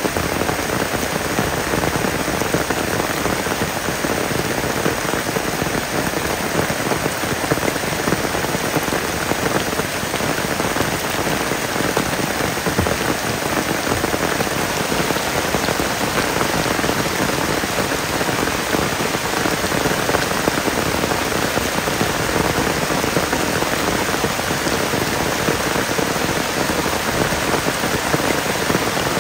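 Heavy rain falling steadily on a wet forest floor with puddles, an even, unbroken hiss of drops.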